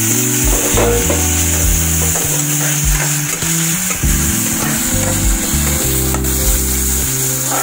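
Potato sticks frying in hot oil in a kadai, giving a steady sizzle as they are stirred with a steel spatula. Background music plays underneath.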